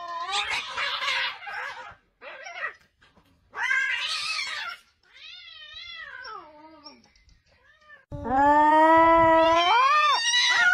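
Cats in a standoff, caterwauling: harsh screeches, then wavering, drawn-out yowls, ending in a long, loud yowl that rises in pitch near the end.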